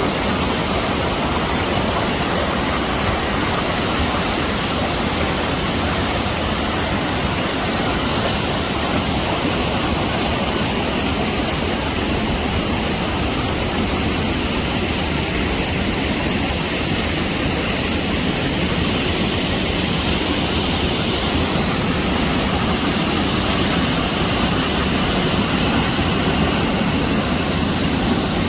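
Steady rushing roar of fast-flowing water, like a waterfall or flood torrent, even and unbroken throughout.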